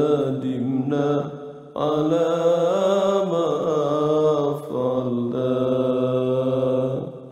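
A man's voice chanting an Islamic devotional nasheed of repentance, drawing out long, slowly wavering held notes in three phrases with short breaths between them, and fading away at the very end.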